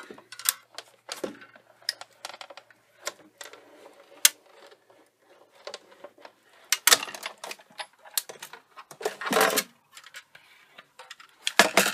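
Sizzix Big Shot die-cutting machine being cranked by hand, with clear plastic cutting plates feeding through its rollers. It gives irregular clicks and knocks, and two longer, louder stretches of noise about seven and nine and a half seconds in.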